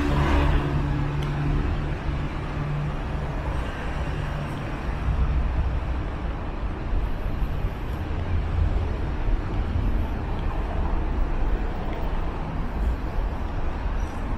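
City street traffic noise: a steady low rumble of cars and road noise, with a low engine hum in the first few seconds.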